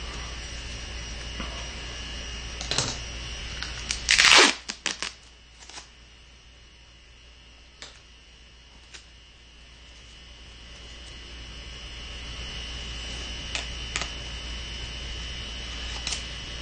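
Scissors snipping the ragged end off a roll of duct tape in a few separate sharp clicks. A short ripping noise of tape comes about four seconds in.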